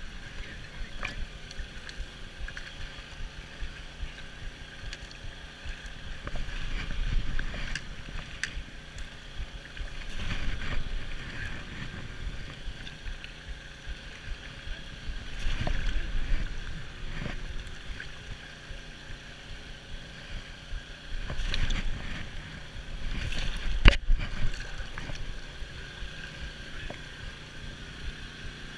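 Wading and dip-netting in a shallow stream: rushing water swishing around legs and net, with louder splashes several times as the net sweeps through the water. A faint steady hum runs underneath.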